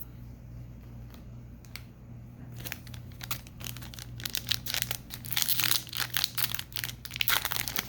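Foil trading-card pack wrapper crinkling and being torn open, starting about two and a half seconds in and getting busier toward the end, over a low steady hum.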